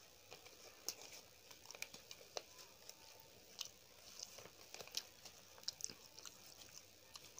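Faint chewing of a mouthful of yellow rice, close to the microphone: irregular small clicks and smacks of a closed mouth eating.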